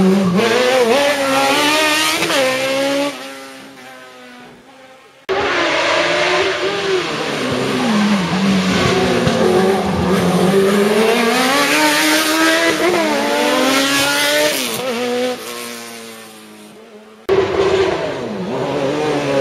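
Sports-prototype race car engines revving hard, their pitch rising and falling again and again as the cars accelerate and back off through cone chicanes. The sound fades as one car pulls away, and it breaks off and starts again abruptly twice.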